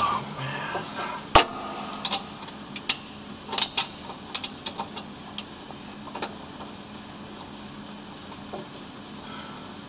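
Sharp metallic clinks and knocks of a socket wrench working on the catalytic converter's mounting bolts, a dozen or so scattered over the first six seconds, the loudest about a second and a half in. After that only a faint steady hum.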